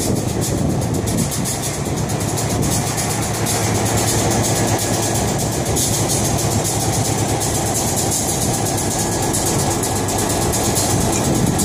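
Diesel-electric locomotive engine idling steadily, a constant low hum while the turntable carrying it slowly turns.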